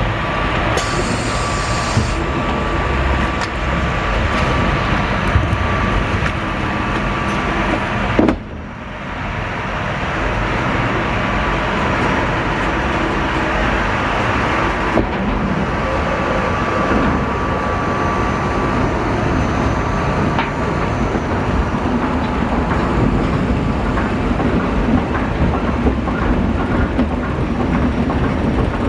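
Amusement-park water ride in motion: a continuous loud rushing noise, with a sudden brief drop in level about eight seconds in.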